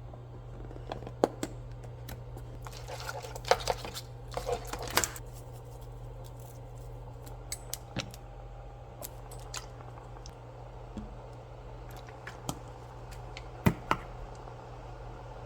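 Kitchen handling sounds: scattered clicks, knocks and clinks of dishes and utensils, with a rustling stretch around three to five seconds in, over a steady low hum.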